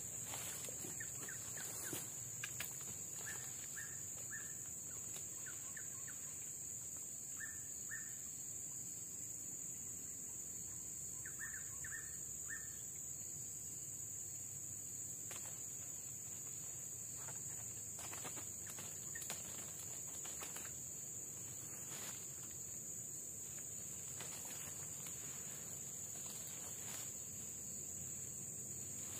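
Tropical forest ambience: a steady high-pitched insect drone throughout, with short bird chirps in small clusters in the first half and occasional brief clicks and rustles.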